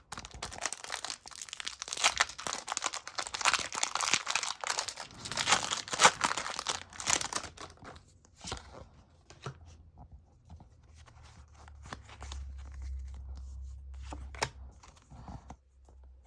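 A Pokémon booster pack's foil wrapper being torn open and crinkled for about eight seconds, then quieter rustling and light clicks as the cards are handled.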